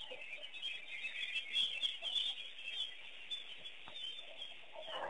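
Many wild birds chirping and calling together in a busy, continuous chorus of high chirps.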